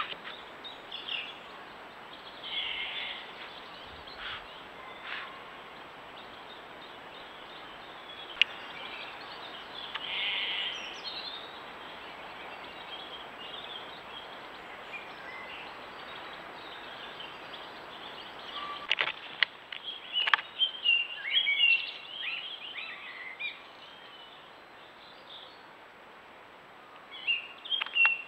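Outdoor ambience of steady hiss with scattered songbird chirps and calls, busiest about two-thirds of the way through and again near the end.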